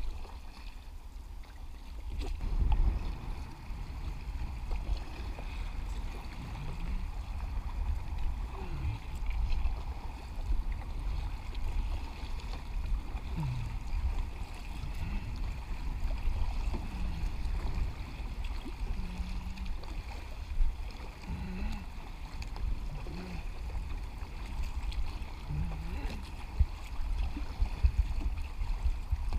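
Recreational kayaks being paddled on a calm river: water splashing and lapping around the paddles and hulls, over a steady low rumble.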